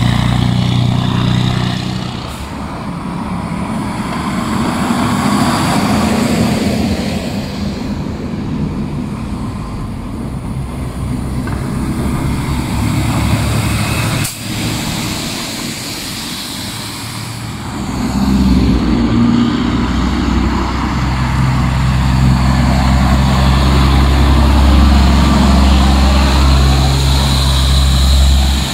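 Heavy diesel tractor-trailer dump trucks hauling snow pass close by one after another, their engines running loud over tyre noise on the wet road. The deepest and loudest engine drone comes in the last ten seconds.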